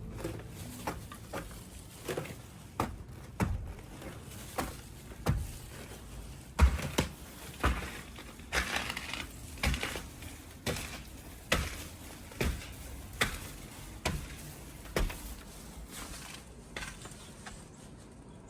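Footsteps crunching on ice-crusted snow at a steady walking pace, a little more than one step a second, getting fainter toward the end.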